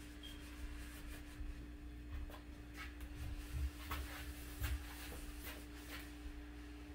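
Faint rubbing and scuffing of rope drawn hand over hand through pulleys and a friction hitch while an engine is hoisted, with a few light clicks and soft knocks.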